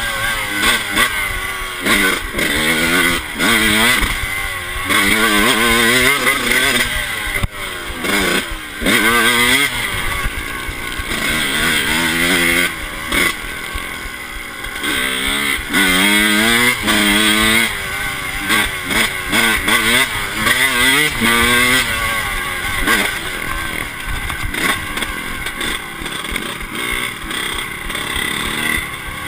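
Yamaha YZ125 two-stroke single-cylinder engine revving up hard and dropping back over and over as the bike accelerates, shifts and slows on a dirt track, heard close up from the handlebars.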